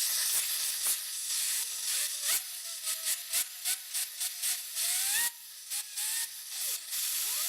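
Compressed-air blow nozzle hissing as it blows dust out of a server power supply fan: a steady leak hiss with a quick series of short blasts. Under it, the fan spun by the air gives a faint whine that rises in pitch.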